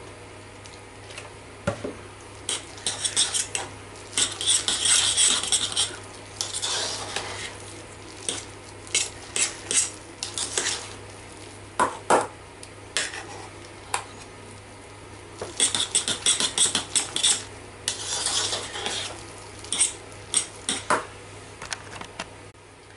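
Metal fork whisking mashed potato in a metal saucepan, scraping and clinking against the pan in spells of quick strokes with pauses between.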